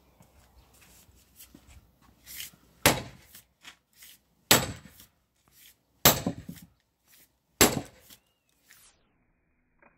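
Sledgehammer striking the back of a splitting maul wedged in a thick log round, driving it into the wood: four heavy blows about a second and a half apart, with a lighter knock just before the first.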